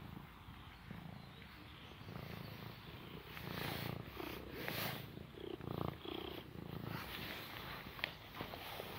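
Tabby cat purring close by in a low, rhythmic rumble as it is stroked, with rustling and brushing from handling, loudest around the middle, and a sharp click near the end.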